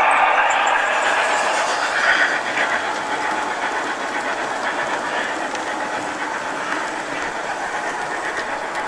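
O-scale model train running along the track close by: a steady whirring of metal wheels on the rails, easing off a little over the first few seconds.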